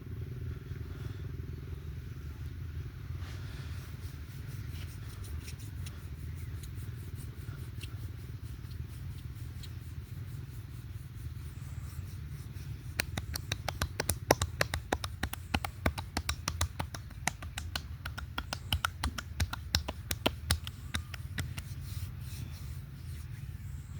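Hands working over oiled skin in a massage, with faint scattered taps. About halfway through comes a quick run of sharp slaps or taps, several a second, lasting about eight seconds, over a steady low hum.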